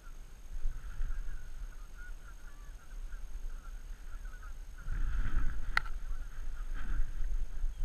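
Geese calling: a continuous chatter of short calls that gets louder about five seconds in, with one sharp click just before the six-second mark.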